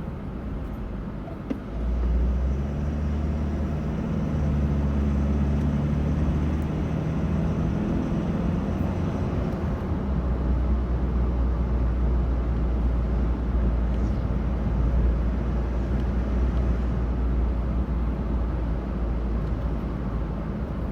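A vehicle driving on a road, with steady low engine and road noise. The engine note climbs a little as it picks up speed, a few seconds in.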